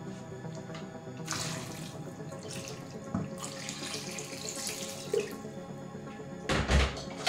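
Water poured from a plastic jug into a pot of diced potatoes, splashing onto the vegetables for about four seconds starting a little over a second in, followed by a loud clunk near the end.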